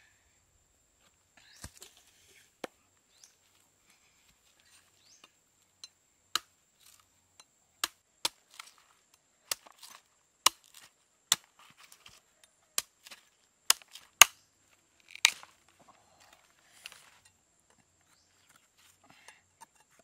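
A broad knife blade chopping into a young green coconut's husk and shell: a series of sharp, irregular hacks about one a second, with softer scraping of the fibrous husk between them.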